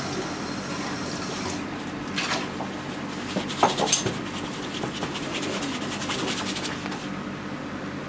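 A brush working oil paint onto a stretched canvas: a few short scratchy strokes, then a quick run of rasping scrubbing strokes, over a steady low room hum.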